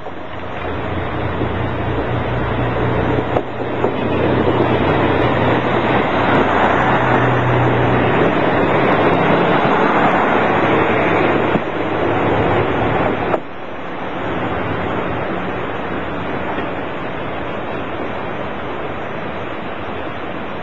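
Kamioka Railway single-car diesel railcar passing close by: a steady engine drone with wheel-on-rail noise grows louder for several seconds as the car goes past. About thirteen seconds in it drops off suddenly, leaving a fainter, steady rumble as the car moves away.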